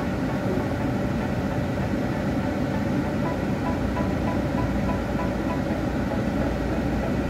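Car engine idling while stopped, heard inside the cabin: a steady low rumble and hum that does not change.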